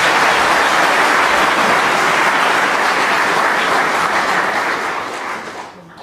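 Audience applauding, a steady clapping that fades out near the end.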